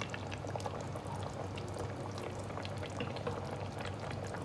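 Green chicken curry simmering in a stainless steel pot: a steady bubbling with many small, irregular pops.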